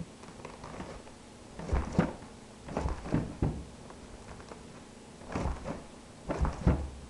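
Pointe shoes knocking on a hardwood floor: four short clusters of dull thumps from the hard toe boxes as the feet step and rise onto pointe.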